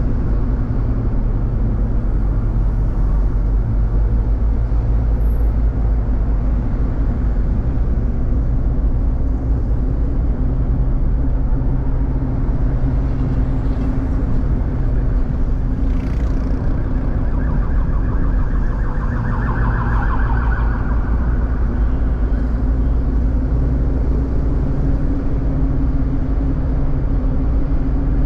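Steady low road and engine rumble heard from inside a moving car in city traffic. About eighteen seconds in, a brief higher buzz rises over it and fades again.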